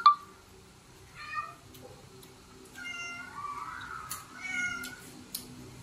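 A cat meowing three times in short, high calls about a second and a half apart, over a faint steady low hum.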